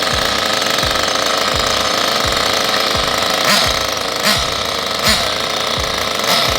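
Nitro RC car engine running with a steady, rattling buzz and a few brief louder bursts in the second half, under background music with an even thumping beat.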